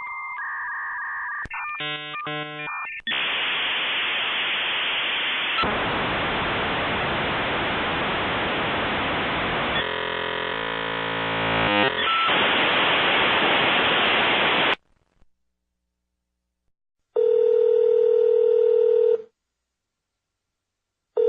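Dial-up modem connecting. A second or two of warbling handshake tones gives way to a long, loud hiss of noise with a brief run of shifting tones in the middle, and the hiss cuts off abruptly about 15 s in. After a short silence a buzzy tone sounds for about two seconds, and another starts just at the end.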